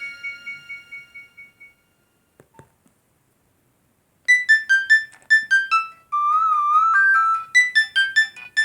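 Nokia 1208b ringtones: the last notes of one melody die away, then after a short gap with a faint click, a new ringtone starts about four seconds in with quick short notes and a warbling held note.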